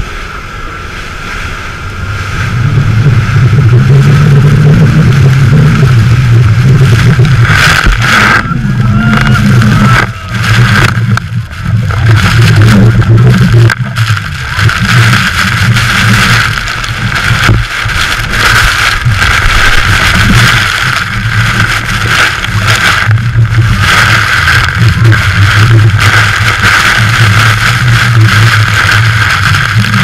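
Tour speedboat's engine running hard with a steady low drone, under a loud rush of water spray and wind on the microphone as the boat runs in close to the waterfalls. It gets much louder about two seconds in.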